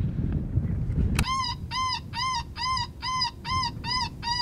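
Electronic predator caller playing a canine distress call: identical whimpering yelps, each rising and falling, repeated about three times a second, starting about a second in.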